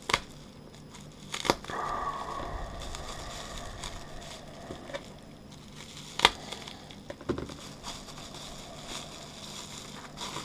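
Plastic bubble-wrap packaging crinkling as it is slit with a knife and unrolled, with about four sharp snaps.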